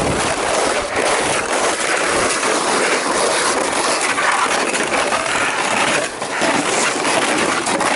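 Skis scraping and crunching over crusted snow, a steady rough shuffling noise with crackles, dipping briefly about six seconds in.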